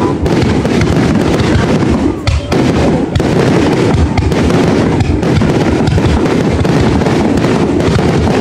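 Fireworks display going off in a dense, near-continuous barrage of booms and crackles.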